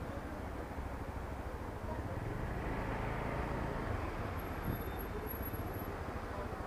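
A Honda Dio scooter's engine running at a steady speed under a constant road and traffic noise, with a faint hum that rises slightly about midway.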